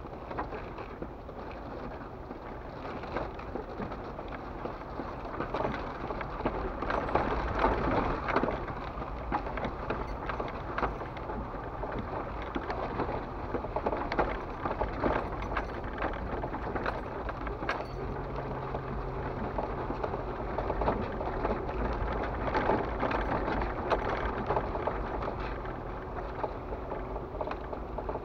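Off-road vehicle crawling over a rough dirt trail, heard from inside the cab: the engine running low under a steady din of tyres crunching over rocks and gravel, with many small knocks and rattles, loudest about seven or eight seconds in.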